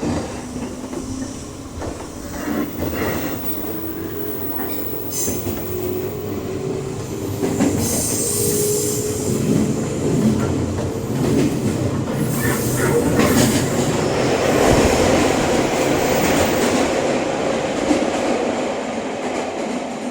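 Inside a Tokyo subway car as the train gets under way: a whine rises in pitch over the first several seconds while the rumble of wheels on rails builds and grows louder. High squeals and rattles come through in the middle stretch.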